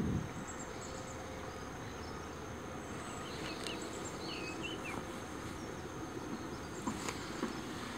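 Steady outdoor background hiss with a faint, thin, high steady tone, and a few short bird chirps about halfway through and again near the end.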